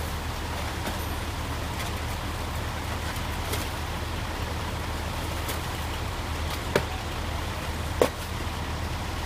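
An engine runs steadily with a low hum under a constant noise. Two sharp knocks come about a second apart near the end.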